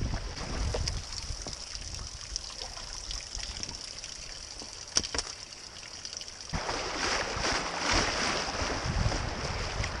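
Creek water rushing and splashing around a kayak running shallow riffles. About halfway through there is one sharp knock. About two-thirds through the rush suddenly gets louder and fuller as the boat reaches rougher water.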